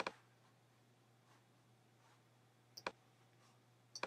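Computer mouse clicks in a quiet room with a faint steady hum: one click at the start and a quick double click a little under three seconds in.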